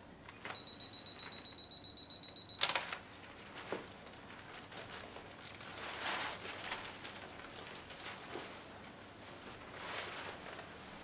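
A camera's self-timer beeping rapidly, a high steady pip about eight times a second for about two seconds, then a sharp shutter click as the timer fires the shot. After it, the stiff PVC rain cape rustles in soft swishes as the wearer moves and turns, with a couple of light knocks.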